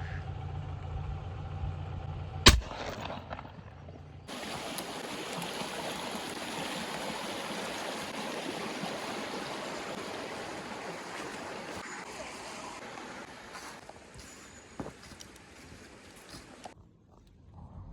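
A low steady hum with one loud, sharp bang about two and a half seconds in, then a steady rushing noise that starts abruptly and cuts off near the end.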